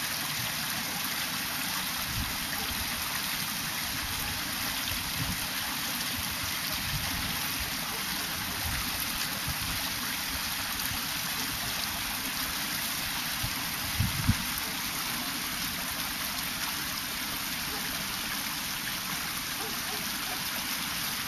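Shallow creek water running steadily, with a few low thumps, the loudest pair about two-thirds of the way through.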